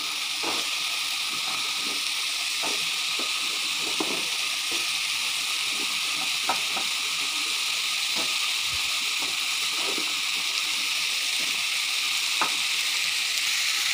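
Masala and lentils sizzling steadily in hot oil in a wok while diced raw potatoes are added and stirred in with a wooden spatula, with a few light knocks and scrapes against the pan.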